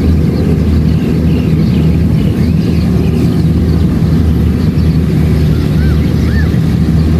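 Kubota DC-70 Plus combine harvester's diesel engine and threshing machinery running steadily under load while harvesting rice. It makes a loud, even low drone that holds the same pitch throughout.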